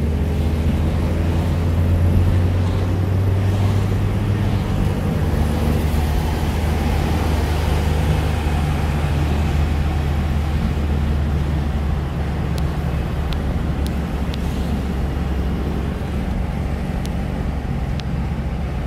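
Car engine and road noise heard from inside the cabin while cruising at about 40 mph: a steady low drone, with a few faint clicks in the second half.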